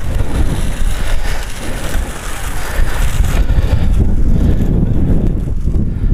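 Wind buffeting the microphone, a loud low rumble throughout. Under it, a drag mat scraped over the infield clay makes a hiss that fades about three and a half seconds in.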